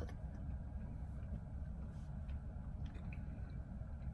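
Steady low room hum, with faint small clicks of a gummy candy being chewed.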